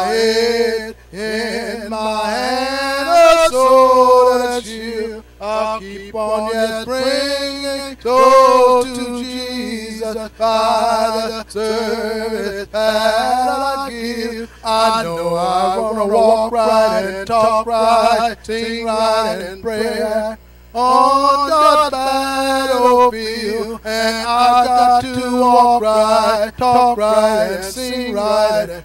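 A man singing a hymn unaccompanied into a microphone, his voice sliding between long held notes.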